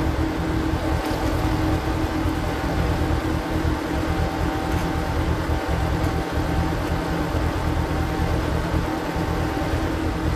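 Power tiller engine running steadily while driving a screw-type log splitter, played back at double speed.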